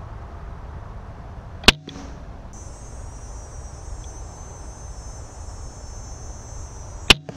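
Two sharp cracks of a Barnett Raptor crossbow being fired, about five seconds apart. Between them is a steady high buzz.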